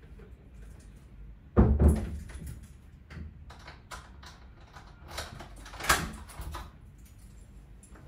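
A door bangs shut with a heavy thud about a second and a half in, followed by a run of short clicks and knocks, with a sharper click near six seconds.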